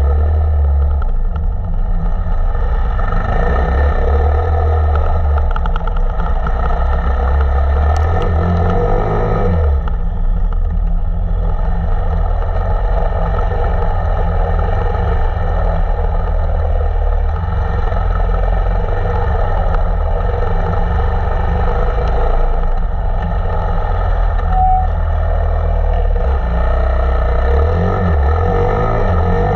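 KTM 525 EXC enduro motorcycle's single-cylinder four-stroke engine running on the move at steady throttle. Its low rumble eases briefly about ten seconds in.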